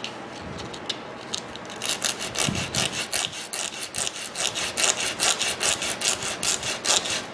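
A carbon motor brush rubbed back and forth by hand on coarse sandpaper: a few slow scrapes, then from about two seconds in quick rasping strokes, about five a second. The brush is being sanded down because it sticks in its brush holder.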